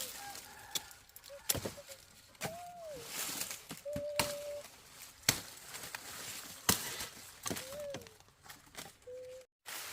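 Sugarcane being cut and handled: irregular sharp knocks and cracks, about eight to ten of them, with a few short high-pitched calls in between.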